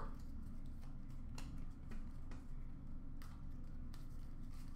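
Baseball trading cards being flipped through by hand: faint, irregular light clicks as the cards slide and snap against each other, over a low steady hum.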